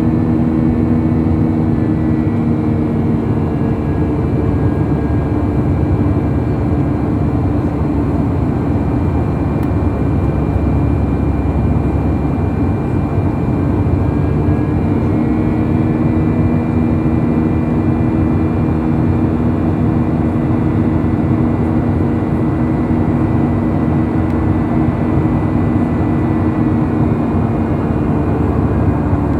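Airbus A319 airliner heard from inside the passenger cabin: a loud, steady jet engine drone and rush of air, with a few held hum tones that fade and return slightly.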